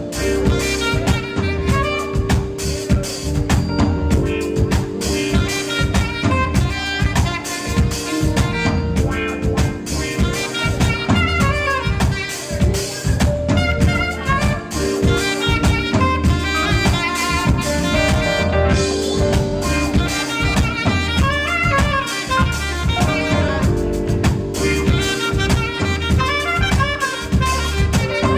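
Smooth jazz: a saxophone plays the melody over a steady drum-kit beat.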